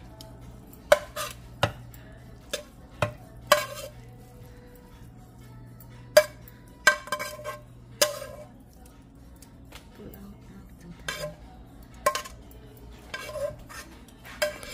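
A metal serving spoon scraping and knocking against a non-stick frying pan and a glass baking dish as cooked tuna mixture is spooned out, giving irregular sharp clinks and taps with scraping between them.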